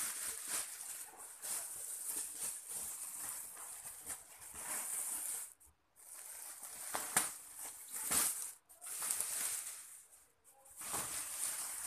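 Thin plastic shopping bags rustling and crinkling as hands rummage through them and pull clothes out, in uneven spells with a few short breaks.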